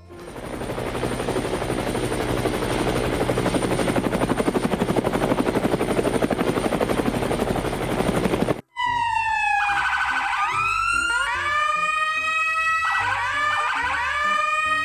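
A steady, rough whirring noise with a fast pulse, cut off abruptly about eight seconds in, followed by a siren wailing in repeated rising sweeps.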